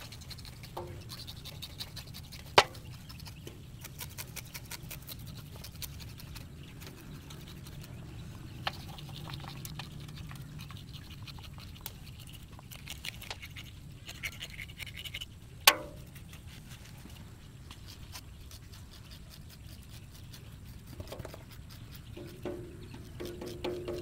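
Hands rubbing and scraping a water snake's skin in a basin: soft scratching and rustling with many small clicks, and two sharp knocks, one a few seconds in and one a little past the middle, over a steady low hum.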